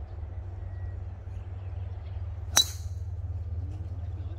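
Tee shot: a golf club strikes the ball once, a sharp, ringing crack about two and a half seconds in. A steady low rumble sits underneath.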